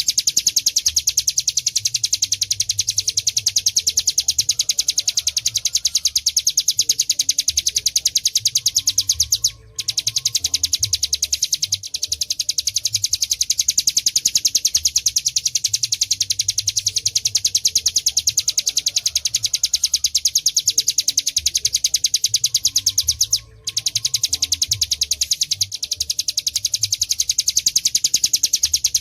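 Ciplek gunung (a prinia) singing a long ngebren song: a very fast, even rattle of high notes repeated without pause, broken off briefly twice.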